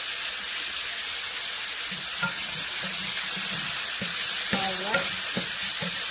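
Chopped pork, garlic, onion and tomato sizzling in oyster sauce in a hot pan, being stirred. A steady frying hiss runs under the knocks and scrapes of the stirring utensil against the pan.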